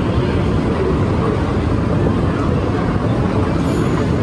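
Steady low rumble of moving walkways and foot traffic in an airport pedestrian tunnel, with music faint beneath it.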